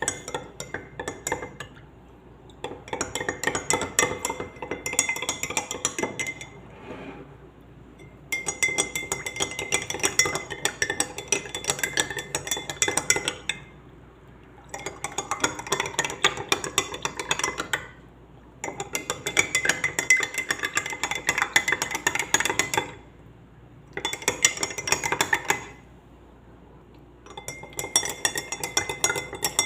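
A spoon stirring lemon juice and honey in a glass, clinking rapidly against the glass in spells of a few seconds with short pauses between, about seven spells in all.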